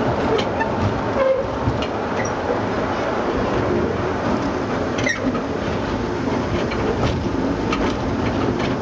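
Miniature amusement-park ride train running along its small-gauge track: a steady rumble of wheels on rail, with a few scattered sharp clicks.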